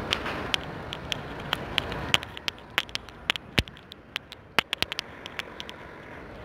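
City street background with a low traffic hum, broken by many sharp, irregular clicks and crackles, about two or three a second.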